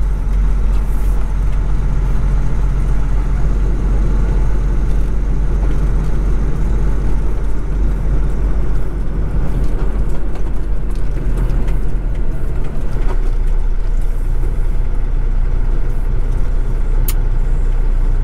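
Kenworth road train's diesel engine running steadily with road noise, a deep constant rumble that eases a little about two-thirds of the way through. A single sharp click near the end.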